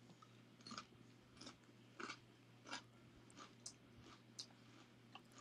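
Faint crunching of a man chewing a barbecue cheddar potato chip, soft crunches coming every half second or so.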